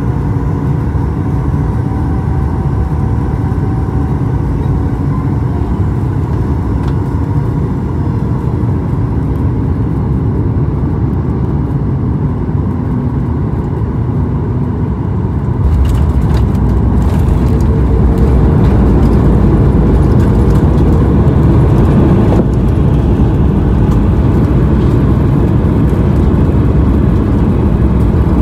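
Cabin noise of a Boeing 737 MAX 8 with CFM LEAP-1B engines on short final: steady engine and airflow noise with faint engine tones. About fifteen seconds in, a sudden louder rumble comes as the wheels meet the runway, and the engine sound then rises in pitch for the rollout.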